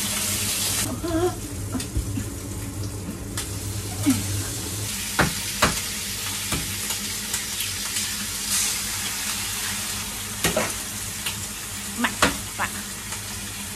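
Frying pan sizzling on a lit gas stove while a wooden spatula stirs in the pan. Several sharp knocks against the pan come in the second half as eggs are cracked into it.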